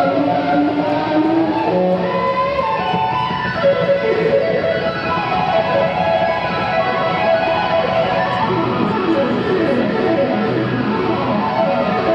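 Electric guitar solo played live, lead notes over the band, turning into fast runs of short notes in the second half.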